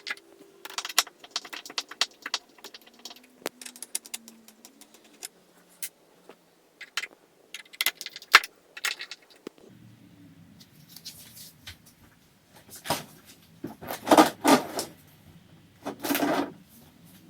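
Small metal clicks and rattles of screws being undone and handled under a dishwasher, followed near the end by a few louder scraping noises.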